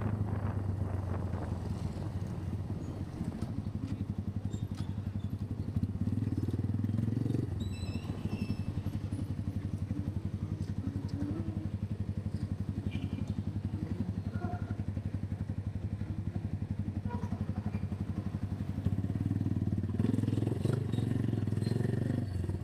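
A small motorcycle engine running steadily at low revs, a fast even putter that carries on without revving up or down.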